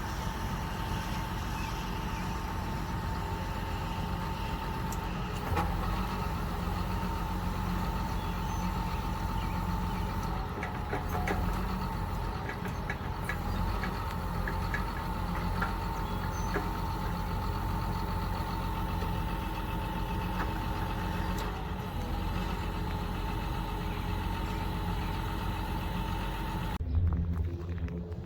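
A vehicle engine running steadily, with a constant whine over a low rumble. It cuts off suddenly near the end.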